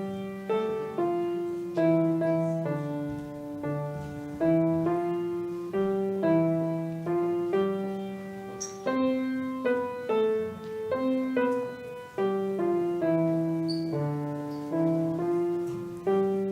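Piano playing a simple hymn-like tune, melody over a steady accompaniment, each note struck and fading: the introduction to a short sung benediction.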